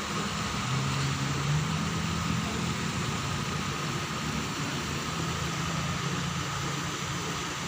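A steady low mechanical hum, like an engine or motor running, over a constant noisy background.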